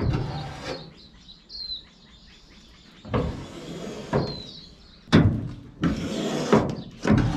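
The steel steering linkage of a homemade amphibious ATV boat is worked back and forth by its lever, its rods scraping and clunking in several short bursts. The steering is being tested with a newly fitted 3D-printed guide. A bird chirps twice.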